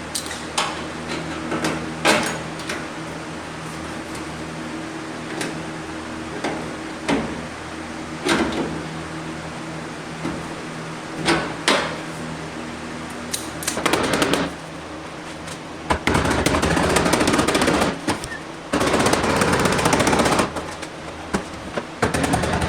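Scattered knocks of metal being tapped, over a steady low hum. From about 16 seconds in come three runs of dense crackling, a couple of seconds each, typical of MIG welding on the car's sheet-metal panel.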